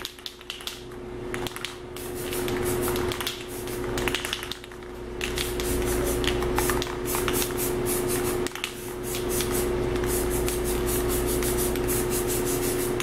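Aerosol spray-paint can hissing in long passes as paint is sprayed onto the rifle, with brief breaks between passes. A steady low hum runs underneath.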